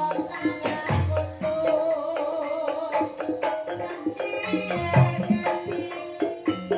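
Banyumasan gending music in the ebeg style: Javanese gamelan with many struck pitched notes over regular hand-drum beats, played steadily through a sound system.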